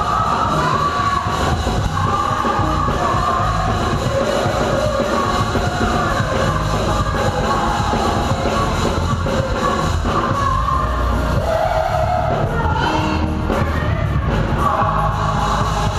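Live gospel praise-and-worship band (keyboards, organ, bass guitar and drums) playing loudly and steadily, with singers leading the song over it.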